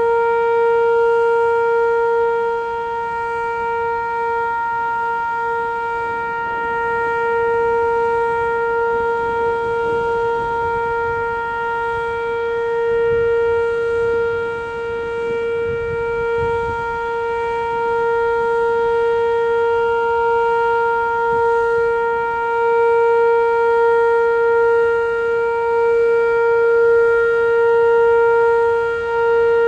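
Whelen WPS-2807 electronic outdoor warning siren sounding a steady, single-pitch alert tone during a tornado siren test. Its loudness swells and fades slightly.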